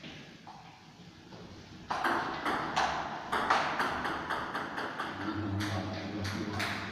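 Table tennis ball clicking in a rally, hit by the bats and bouncing on the table: a quick run of sharp clicks, about three or four a second, starting about two seconds in.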